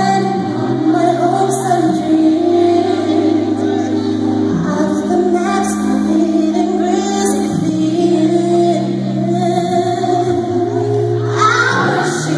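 Live band performance with a woman singing over sustained bass and keyboard chords that change every few seconds, heard from the audience in a concert hall.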